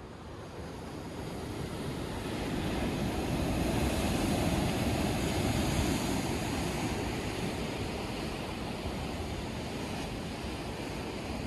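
Ocean surf breaking on a rocky shore: a steady rushing wash that swells over the first few seconds and then slowly eases.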